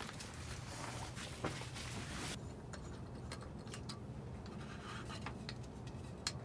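Rustling handling noise for the first couple of seconds, then scattered light clicks and taps as a small gas lantern's glass globe and gas cartridge are handled on a wooden table, with one sharper click near the end.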